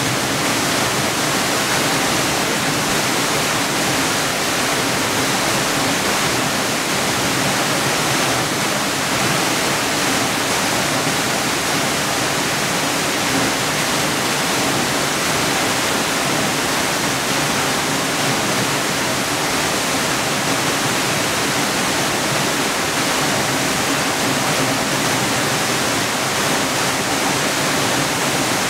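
A large, high-volume curtain waterfall crashing into its plunge pool, a loud, steady rush of falling water with no breaks, heard from close by.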